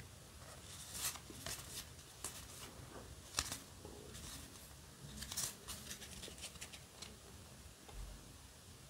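Faint slides and flicks of Yu-Gi-Oh! trading cards, card stock rubbing against card stock, as they are leafed through one by one in the hands. The sounds come at irregular intervals, a little louder about a second in, around three and a half seconds, and around five seconds.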